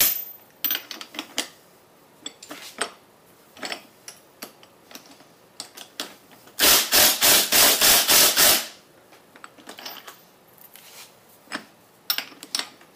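Ryobi 18-volt cordless impact driver running for about two seconds in the middle, hammering in several quick pulses as it runs a hub puller's bolt in tight. Sharp clicks and clinks of metal tools and parts come before and after.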